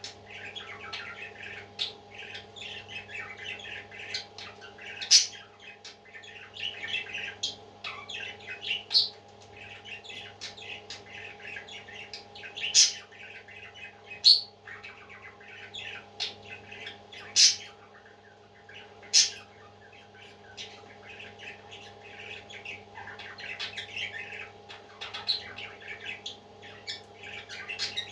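Parrot chicks chirping and squawking without pause, with sharp, louder calls every few seconds, over a steady low hum.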